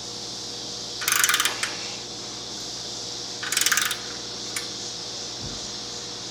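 Ratchet wrench clicking in two short bursts, about a second in and again near the middle, with a single click after, as hose-type heat shield clamps on a motorcycle exhaust are tightened.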